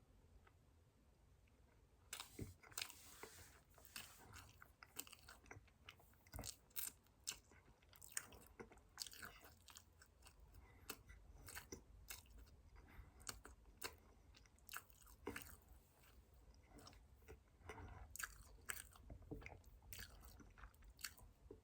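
Close-miked chewing of a soft, pound-cake-like chocolate ring cake: quiet, irregular wet mouth smacks and clicks, sparse for the first couple of seconds and then continuing steadily.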